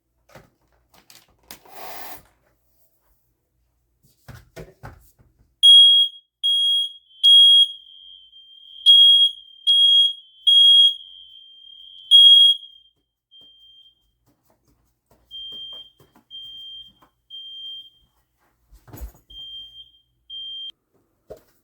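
A brief hiss of sprayed test smoke, then a household smoke alarm goes off with loud, high-pitched beeps in the three-beep pattern: three beeps, a pause, three more, and a single one before it stops. Another smoke alarm elsewhere in the house keeps beeping more faintly in the same pattern.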